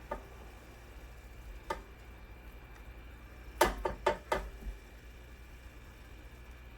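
A few light knocks and clicks of kitchen dishes and utensils being handled, with a quick run of about four near the middle, over a faint low hum.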